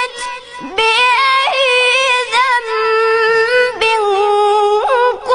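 Quran recitation in a high voice, sung melodically: long drawn-out held notes with ornamented turns between them, the pitch stepping down a little about four seconds in.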